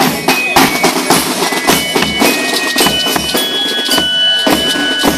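A marching band plays a march. Side drums beat a steady rhythm with bass drum and cymbals, under a melody of high held notes.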